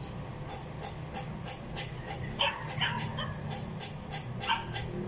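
Short, high animal calls repeated irregularly, a few times a second, with a couple of stronger pitched cries a little past the middle and near the end.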